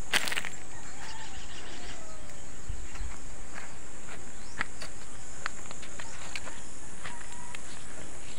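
Steady high-pitched insect drone, with scattered crunches and clicks of footsteps on stony soil and one louder crackle just after the start.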